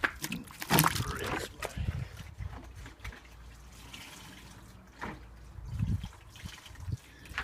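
Short spurts and drips of liquid as water and degreaser are applied by hand to a car engine bay, a cluster in the first two seconds and another about five seconds in, over a steady low wind rumble on the microphone.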